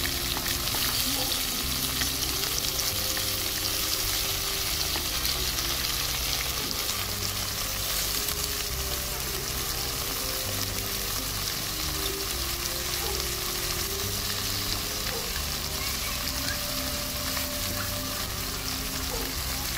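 Fish frying in hot oil with onions in a metal kadhai: a steady sizzle.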